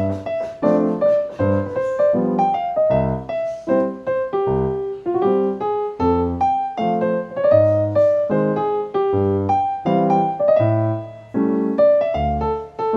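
Solo piano music playing a gentle melody over repeated chords, each note struck and decaying.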